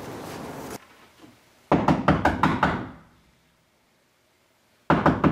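Hard, rapid knocking on a door: a quick run of about eight knocks, then a second run starting near the end.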